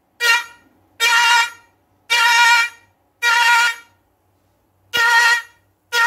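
Homemade 12-volt, 48-FET electric fish-shocking machine buzzing in half-second bursts, about once a second, as it fires through its electrodes into a bucket of water, with a spark at the wire tip. A short low thump comes about five seconds in.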